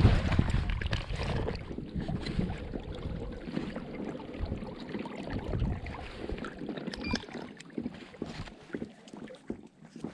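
Water lapping and splashing around a float tube, with wind rumbling on the microphone that is strongest in the first couple of seconds and then dies down, leaving small irregular splashes and ticks.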